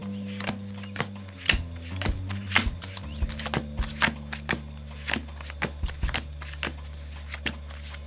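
A deck of Phase 10 playing cards being shuffled by hand: a run of irregular, quick card snaps and riffles. Background music with a steady, shifting bass line plays under it.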